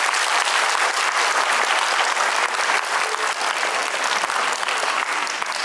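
Audience applauding: dense, steady clapping from a concert-hall crowd.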